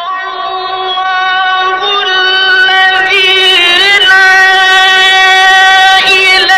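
A man's voice reciting the Quran in the melodic tajweed style. It holds long high notes, with ornamented wavering turns about three seconds in and again near the end.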